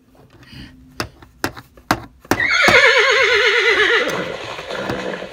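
A few sharp plastic clicks as toy stable pieces are handled, then, a little over two seconds in, a loud horse whinny with a fast wavering pitch that lasts about two seconds and trails off.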